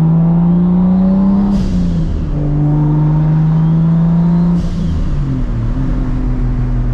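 Straight-piped Toyota Supra MKIV turbo inline-six, heard from inside the cabin, pulling through the gears. The engine note rises, drops at an upshift about a second and a half in, rises again, and drops at a second shift about four and a half seconds in. There is a brief hiss at each shift.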